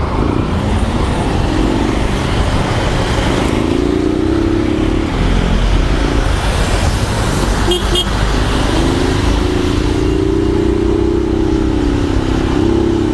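Vehicle engine pulling away in traffic, its pitch rising as it accelerates twice, over a constant rumble of road and wind noise.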